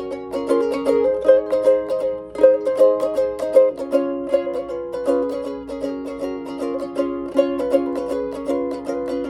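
Rebel Alchemist Jr. ukulele played solo: a tune of quickly plucked single notes over ringing chords, several notes a second.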